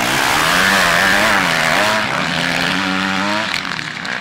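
Motocross bikes' engines revving up and down as the riders pass through a corner, several engines overlapping. Loudest in the first two seconds, then a little quieter, with one engine rising in pitch and cutting back about three and a half seconds in.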